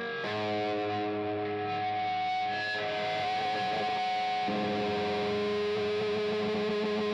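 Background rock music: held, distorted electric-guitar chords that change a moment in and again past the middle.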